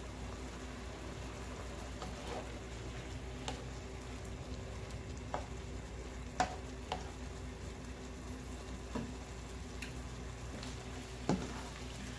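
Shrimp, zucchini and tomatoes sizzling gently in butter and a little pasta water in a nonstick pan, stirred with a plastic slotted spatula. Several short knocks of the spatula against the pan.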